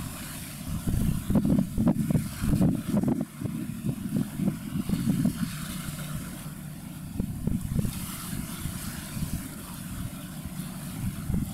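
Wind buffeting the microphone: an irregular, gusty low rumble that swells and drops every moment.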